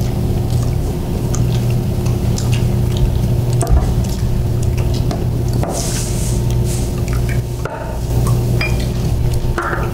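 Eating sushi: wet chewing and squishing mouth sounds, with short clicks of chopsticks against dishes, over a steady low background hum.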